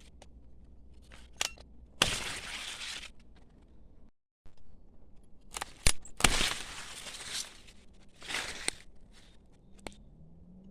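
Ratchet pruning shears cutting through thick branches: three crunching cuts, each half a second to a second long, with sharp clicks before the first two.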